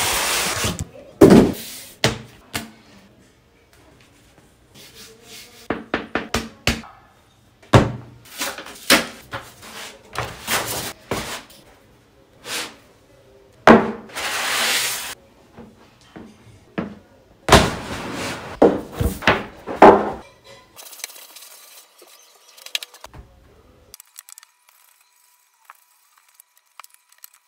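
Unboxing and handling sounds: a cardboard box opened and slid apart, and a rolled desk pad unrolled and pressed flat onto a wooden desk. A string of separate thunks, rustles and rubs, falling quiet near the end.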